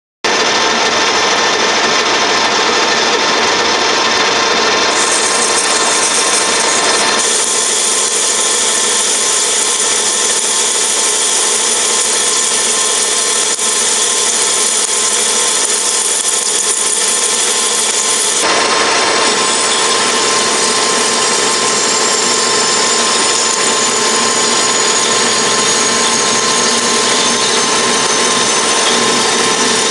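Metal lathe cutting a round billet: turning its outside diameter and then drilling it through the centre, a loud continuous cutting and running noise that changes abruptly several times.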